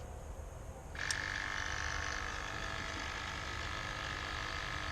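Electric vacuum pump on a 7.3 Powerstroke switching on with a click about a second in, then running steadily with a high-pitched hum as it pulls vacuum on the truck's vacuum canister.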